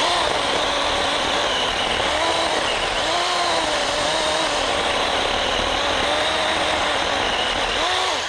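Small 6-inch chainsaw cutting through a downed tree trunk. Its pitch dips and wavers as the chain loads in the cut, and it starts and stops abruptly.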